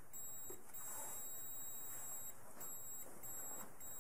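Faint, high-pitched electronic whine that cuts out briefly a few times at uneven intervals, over quiet room tone.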